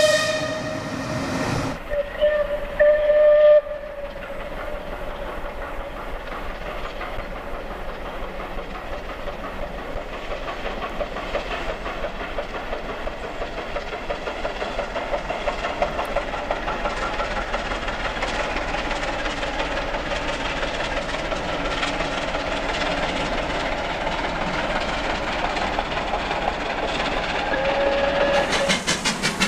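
Steam locomotive whistle blowing about two seconds in. The locomotive is then heard working a train at speed: a rapid, steady beat of exhaust chuffs with wheels on rail. The whistle sounds again briefly near the end.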